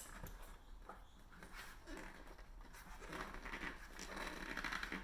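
Faint rubbing and scraping of a tubeless road tyre's bead being worked onto the rim by hand, with a few small clicks and a louder stretch of rubbing near the end.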